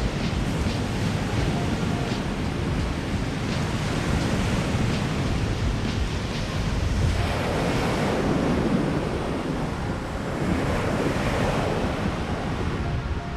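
Waves breaking and washing against a lakeshore, with wind buffeting the microphone; a larger wave surges in about seven seconds in.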